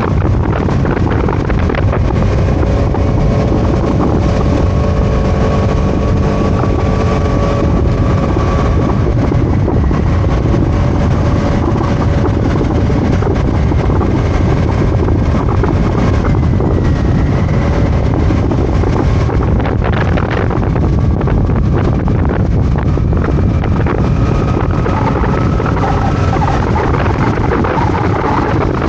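Scooter under way: wind buffeting the microphone over the steady drone of the engine, whose pitch drifts gently up and down.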